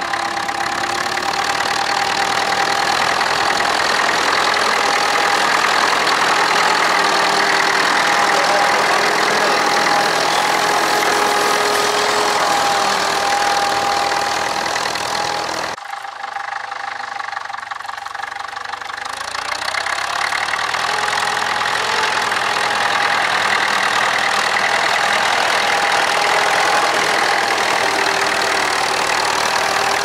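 Vintage tractor engine labouring steadily as it pulls a plough through the ground, with a wavering whine over the drone. The sound drops suddenly just past halfway, then builds again as the tractor comes close.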